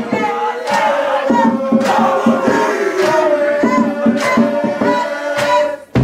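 Marching band brass holding one long note with no drums or bass under it, while band members holler over it. The note cuts off sharply near the end.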